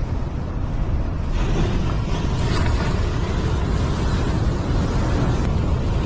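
Heavy surf washing over sea rocks, with wind rumbling on the microphone; a hissing wash swells up about a second and a half in.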